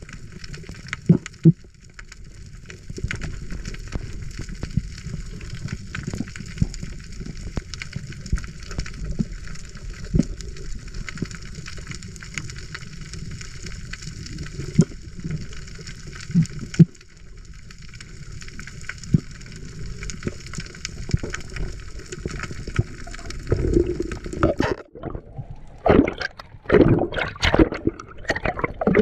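Underwater sound picked up by a camera below the surface: a steady hiss and low rumble scattered with small clicks and crackles. About 25 seconds in it cuts off abruptly and gives way to loud, irregular bubbling and gurgling.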